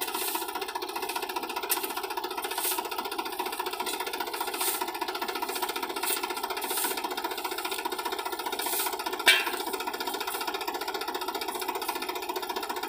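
Sonalika DI 35 tractor's diesel engine running steadily with a fast regular pulse, with a few short scrapes of a shovel in sand and one sharp knock about nine seconds in.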